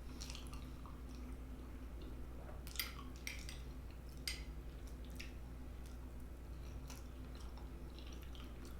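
Close-miked chewing of soft macaroni and cheese: quiet, wet mouth sounds with scattered small smacks every second or so.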